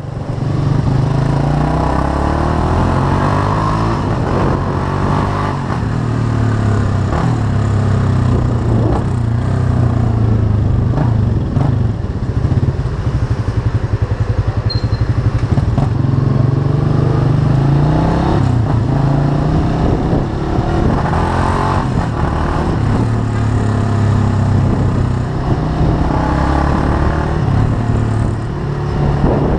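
Chopper-style motorcycle's engine running while ridden, its pitch rising and falling through several rounds of acceleration and easing off.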